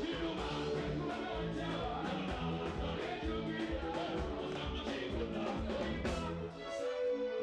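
Live band music with singing, over a steady drum beat and bass line. The bass and drums drop out for a moment near the end under a held note.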